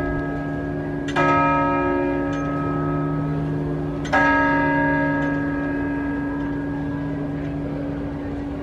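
The large bell on top of St Mark's Clock Tower in Venice, struck twice by the hammer of a bronze Moor figure, about three seconds apart, striking the hour. Each stroke rings out with a bright clang and a long humming fade, and the hum of an earlier stroke is already sounding at the start.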